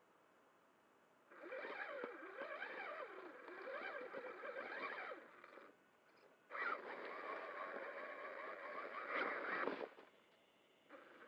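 Traxxas Summit RC truck's electric motor and drivetrain whining in two bursts of about four and three seconds, the pitch wavering up and down with the throttle.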